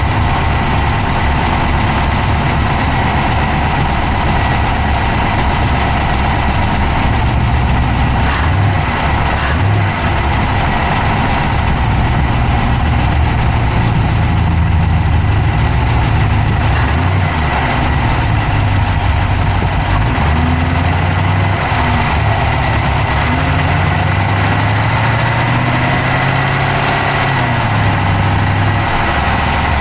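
Dodge Charger's Hemi V8 running at idle, heard up close from inside the engine bay, with a fast clicking ticking over the steady engine sound.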